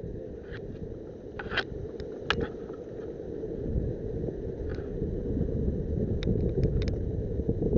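Wind buffeting the microphone as a steady low rumble, with a few scattered sharp clicks and snaps, loudest around two seconds in.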